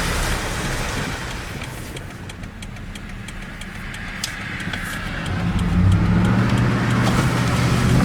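2004 Ford F-150's V8 engine running with its new variable valve timing solenoid. The sound dips in the middle, then a steady low hum grows louder from about five seconds in.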